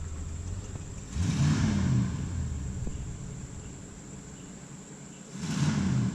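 Engine of a 1978 Ford F100 pickup running, revved up twice: once about a second in and again near the end, running lower in between.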